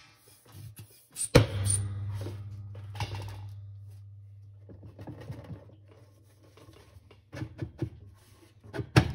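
A sharp crack about a second and a half in as the Speed Queen washer's plastic agitator lets go of its spline clips and pops up off the inflated air wedges, followed by a low ringing that fades over several seconds. Near the end come a cluster of clicks and knocks of the plastic agitator parts being handled.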